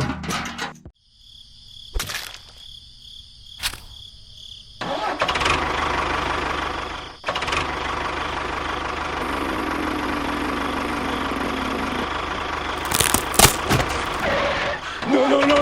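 A small engine starting about five seconds in, after two sharp clicks, then running steadily.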